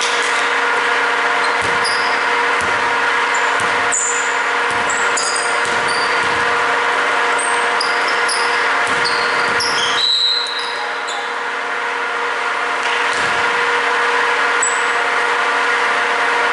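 Basketball play on a wooden gym floor: sneakers squeaking in short high chirps and the ball thumping on the court at irregular intervals, over a steady mechanical hum.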